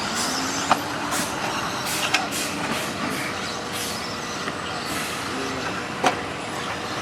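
Electric 2WD stock RC buggies racing on a dirt off-road track: a steady hiss of motors and tyres with faint whines that rise and fall as the cars speed up and slow, and a few sharp clicks.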